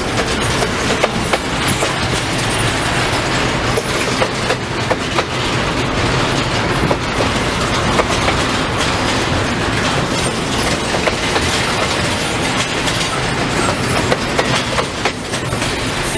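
Freight train cars rolling past, double-stack container well cars and then boxcars, making a steady rumble. The wheels clack over the rail joints in frequent sharp clicks throughout.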